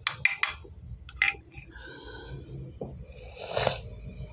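Metal spoon clicking and scraping as mashed banana is scooped up for feeding: a few quick clicks in the first half second, another about a second in, and a short hissing scrape about three and a half seconds in.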